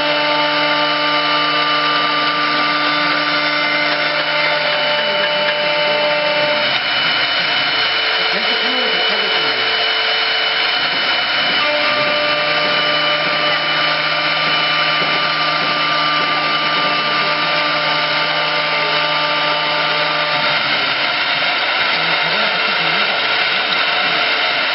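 CNC wood lathe with a carving spindle running, a steady motor whine of several tones over a loud cutting noise as it machines a twisted handrail. The pattern of tones changes about six and a half seconds in, returns near twelve seconds, and shifts again around twenty seconds.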